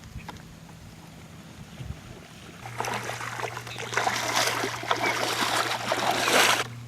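Water splashing and sloshing in the marsh. It starts nearly three seconds in, grows louder about a second later and stops abruptly just before the end, over a faint steady low hum.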